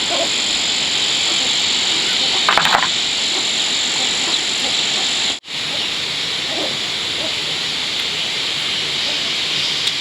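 A dense chorus of calling animals making a steady high-pitched hiss, with a brief clatter about two and a half seconds in and a momentary break just past halfway.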